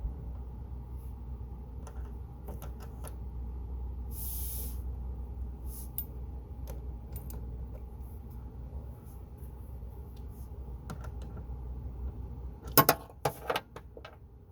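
Small metallic clicks and clinks of hand tools working the battery cable terminals, with a cluster of louder clicks near the end, over a steady low rumble.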